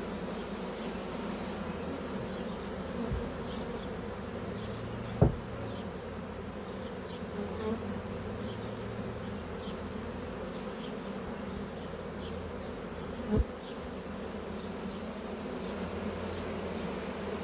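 Honey bee swarm buzzing steadily as it is being hived into a five-frame nuc box, with two sharp knocks, about 5 seconds in and about 13 seconds in.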